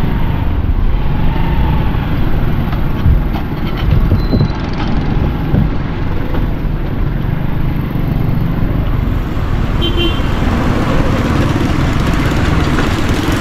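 Motorcycle engine and busy street traffic heard from the rider's seat while riding slowly through a crowded, wet street: a steady low rumble, with a vehicle horn tooting briefly about ten seconds in.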